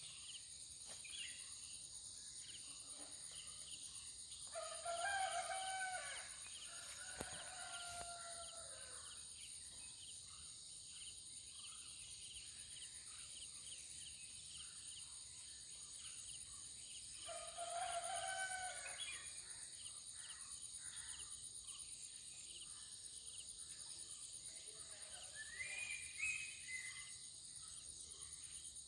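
A rooster crowing three times, several seconds apart, over a steady high insect drone.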